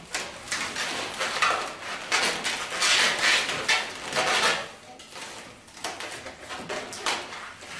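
Latex 260 modelling balloons squeaking and rubbing against each other as they are twisted and woven together. The squeaking comes in dense bursts through the first four seconds or so, eases off, then comes back briefly near the end.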